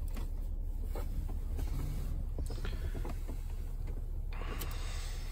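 Rain pattering on the car's roof and windshield, heard from inside the cabin as many small scattered ticks over a low steady rumble, with a steady hiss joining about four seconds in.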